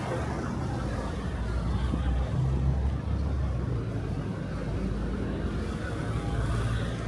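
City street traffic: a city bus pulls past close by, followed by a few motor scooters, with the steady hum of engines and tyres on the road.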